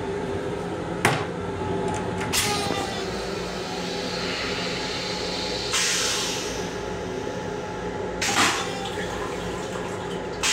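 Plastic toilet seat lowered onto a stainless-steel train toilet bowl, with a sharp clack about a second in and a lighter knock soon after. About six seconds in a sudden hiss of the toilet flushing starts and fades over a couple of seconds, followed by a shorter burst. Over all of it runs the steady hum of the moving M7 railcar.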